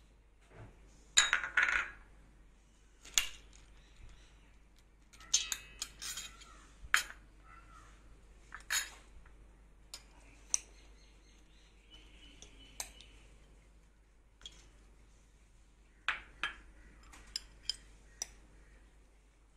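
Spoons clinking and scraping against a stainless steel bowl and glass dishes while ingredients are served out: scattered clinks with pauses between them, a dense cluster about a second in, more around five to seven seconds in, and a quick run of clinks near the end.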